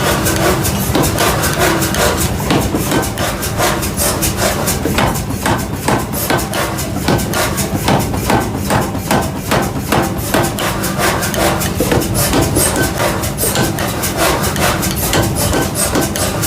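Metal being hammered: rapid repeated strikes, several a second, over a steady low machine hum.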